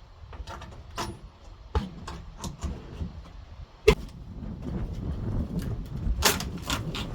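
Scattered knocks and clicks of boards and tools being handled on a wooden deck, the loudest a single sharp knock about four seconds in, over a low rumble that grows louder toward the end.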